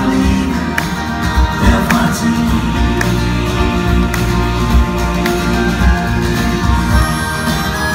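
A live band playing: acoustic guitar, electric bass and drums, with a steady beat of drum hits.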